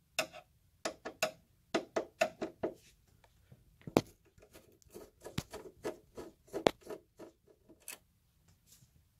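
A hand screwdriver backing out small screws inside the metal chassis of a PIP5048MG inverter charger. Irregular light metallic clicks and scrapes of the tool on screws and sheet metal, the sharpest about four seconds in.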